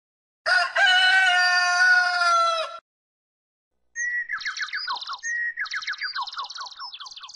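A rooster crowing once in one long, held call. After a short pause comes a quicker run of short, falling chirps from a bird.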